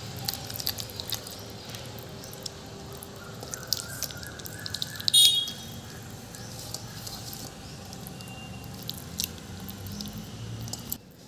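A hand rubbing thick masala paste over a whole quail in a stainless-steel bowl: scattered small wet clicks and squishes, with one louder click about five seconds in that rings briefly.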